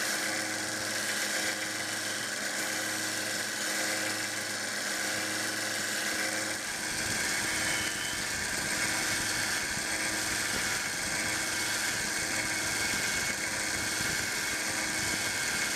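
Small 1x30 belt sander running steadily with a medium conditioning belt while brass screwdriver ferrules are polished against it: a motor hum under an even hiss of the belt on the metal.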